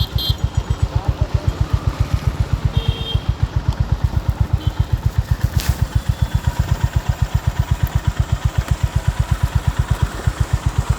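Honda H'ness CB350's single-cylinder four-stroke engine idling through its stock exhaust: a steady, even thump at about seven beats a second.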